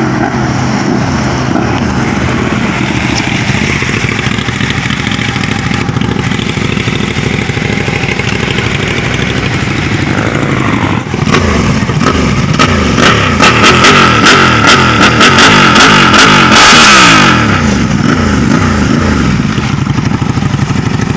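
Ducati Panigale 959 with an Austin Racing exhaust being ridden, its engine note repeatedly rising and falling as it revs and changes gear. In the second half it gets louder, with a rapid run of sharp cracks.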